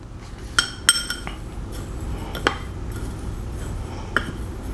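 Metal spoon stirring a coarse dry rub of salt and cracked pepper in a glass bowl, clinking against the glass about five times with short bright rings.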